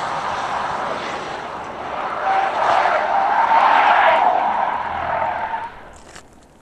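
Tyres of an Opel Astra GTC squealing and scrubbing as the car slides sideways and spins out with its electronic stability control switched off. The squeal swells about two seconds in, is loudest in the middle, and fades away near the end.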